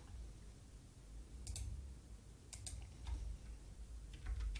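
About half a dozen sparse clicks from a computer keyboard and mouse, starting about a second and a half in, over a faint low hum.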